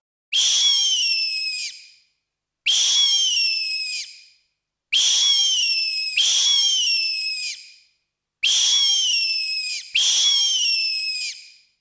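Synthetic creature shriek from a 1989 Digiffects sound-effects CD, made from a sped-up recording of a scream. The same shrill call plays six times, each lasting about a second and a half, with its pitch falling away at the end.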